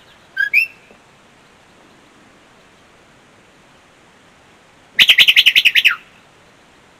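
Sheepdog handler's whistle commands to a working border collie: a short two-note whistle rising to a higher second note, then about five seconds in a rapid warbling trill lasting about a second that slides down at the end, the dog's special circle whistle.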